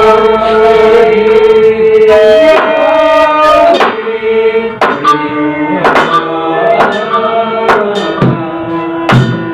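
Sasak wayang gamelan ensemble playing a gending: a long held melodic note for about the first two seconds, then repeated sharp percussive strikes, about one or two a second, over the shifting melody.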